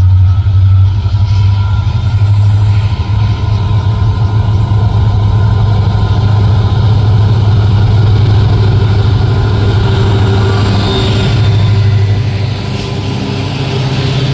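Two WDG4 diesel locomotives, each with an EMD 16-cylinder two-stroke engine, working under load as they accelerate the train: a loud, steady, deep engine drone with a thin high whine above it. Near the end the locomotives pass close and the tone of the drone changes.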